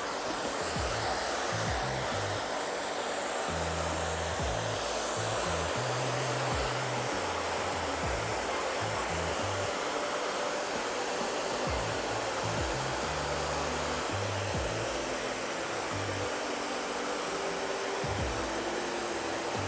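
Hair dryer fitted with a diffuser attachment blowing steadily while diffusing a man's mid-length hair: an even rush of air with a thin, steady high whine.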